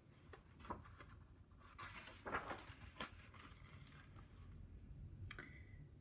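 Faint rustling and a few soft taps of a picture book's page being turned, the rustle strongest a couple of seconds in.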